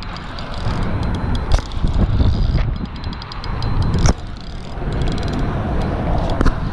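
Shimano Baitrunner 6500 spinning reel clicking rapidly as it is cranked under the load of a big fish, with wind rumbling on the microphone. One sharp click stands out about four seconds in.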